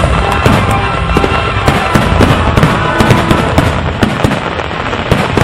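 Fireworks display: a dense run of bangs and crackles, several a second, over a continuous rumble.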